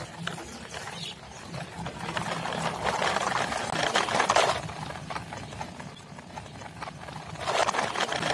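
Plastic toy tractor and trailer rolling over paving stones, a dense clattering rattle of hard plastic wheels and loose toy tractors in the trailer. It comes in two stretches, the first starting about two seconds in and the second near the end.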